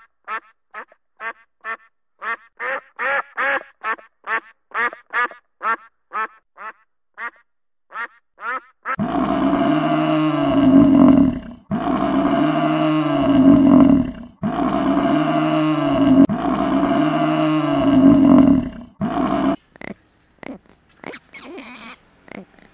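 A duck quacking in a fast run of short quacks, about two or three a second. About nine seconds in, a water buffalo takes over with about four long, low lowing calls of two to three seconds each. Near the end come faint short calls from a ring-tailed lemur.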